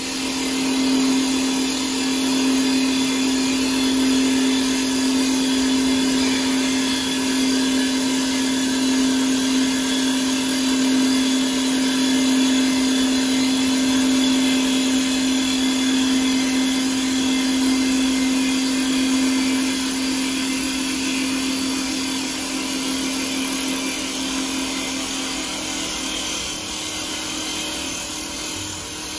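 CNC wood lathe running, spinning a wooden spindle while its head shapes it: a steady machine hum with a strong low drone and a hiss over it, easing slightly in the last few seconds.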